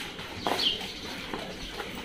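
A short, high animal call, falling slightly in pitch, about half a second in, over the general noise of a pack of dogs milling about on a tiled yard.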